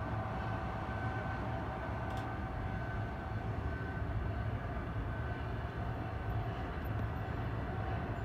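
Container freight train hauled by an electric locomotive rolling slowly past at a distance: a steady low rumble with a faint steady hum over it and a single light click about two seconds in.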